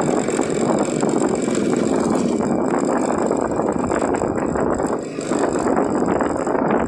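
Motor scooter ridden at low town speed, its small engine running and the rush of the ride making a steady noise, with a brief dip about five seconds in.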